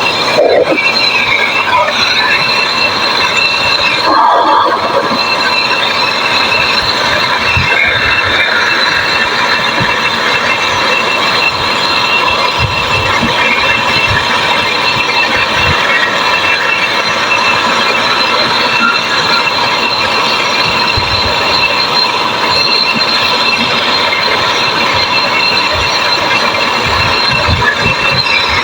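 Brazing torch flame hissing steadily as the compressor's discharge pipe is brazed, with thin high whistling tones held above the hiss.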